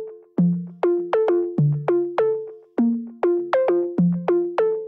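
Background music: a light electronic melody of short plucked synth notes, each fading quickly, about three notes a second.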